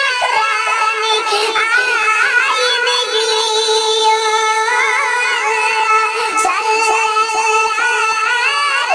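A Kashmiri durood naat sung by a solo male voice in long, ornamented melodic lines over a steady held drone.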